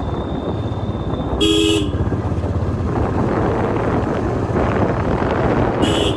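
Royal Enfield Classic 350's stock single-cylinder engine running on the move, with two short horn toots, one about a second and a half in and one near the end.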